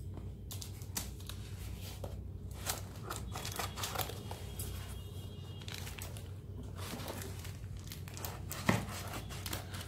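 Cardboard shipping box wrapped in clear plastic tape being handled and turned over by hand: irregular crinkling and rustling with scattered light taps, over a steady low hum.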